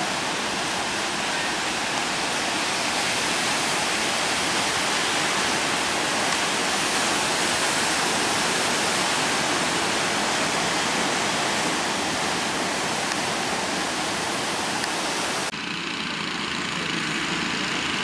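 Heavy surf breaking on the shore: a steady, dense rushing of waves. Near the end the sound changes abruptly to a thinner rush.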